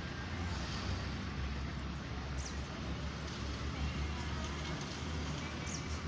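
Steady outdoor background noise with a low rumble and faint distant voices, and a couple of brief high chirps.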